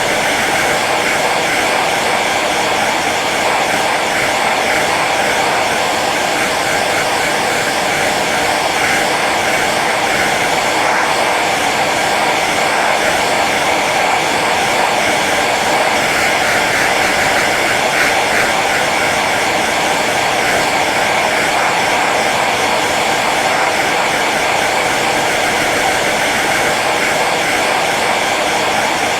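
Hair dryer running steadily on its low setting: an even rush of blown air with a faint motor hum.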